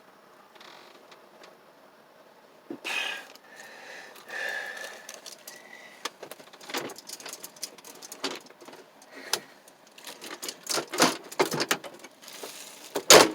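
Doors being pulled shut from inside a small camper: a run of clicks, rattles and knocks as they are handled and latched, with the loudest knock near the end.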